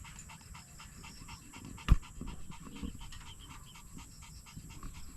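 A dog panting fast and evenly, about six breaths a second, with one sharp knock about two seconds in.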